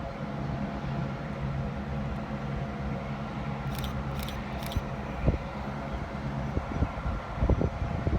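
Train running with a steady low mechanical hum, some scattered knocks, and three short bursts of hiss about four to five seconds in.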